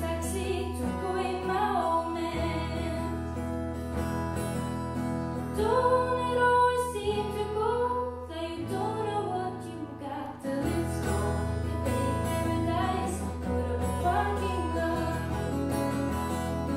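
A young woman singing with her own acoustic guitar accompaniment, a live solo performance.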